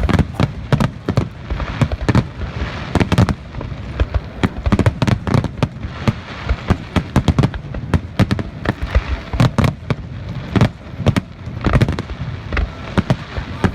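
Fireworks display: aerial shells bursting in quick, irregular succession, several sharp booms a second.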